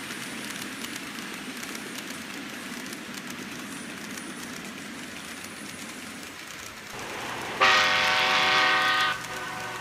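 N-scale model trains running on the layout, a steady whir with light clicking of wheels on the track. About seven and a half seconds in, a locomotive's horn sounds loudly for about a second and a half, then cuts off.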